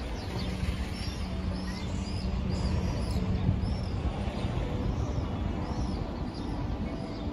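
Small birds chirping over and over in short, high notes above a steady low rumble.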